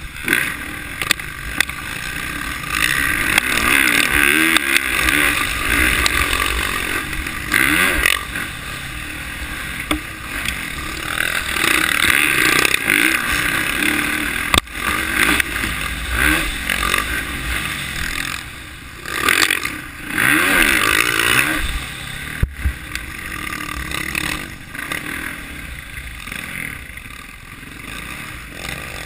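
Dirt bike engine ridden on a rough trail, its note rising and falling as the throttle opens and closes, with two sharp knocks midway.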